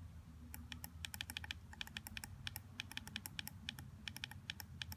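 Snow Wolf 200 W box mod's adjustment button clicked over and over in quick succession, a run of small sharp clicks several a second starting about half a second in, as the wattage is stepped down toward 40 W.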